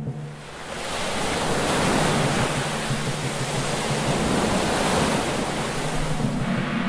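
Ocean surf rushing in, swelling up over the first second into a steady wash of breaking waves.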